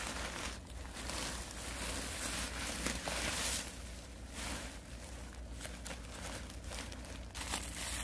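Rustling and crinkling of a woven sack and dry debris as trash is stuffed into it and handled by hand, in an irregular run of short scrapes and rustles.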